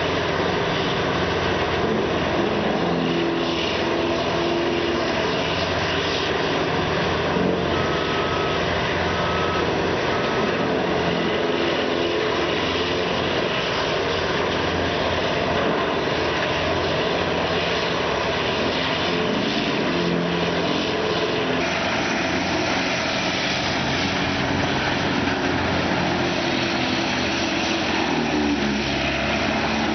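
Diamond Z DZT8000TKT track-mounted tub grinder running steadily under load, its diesel engine and hammermill grinding brush and wood waste. The tone shifts about two-thirds of the way through.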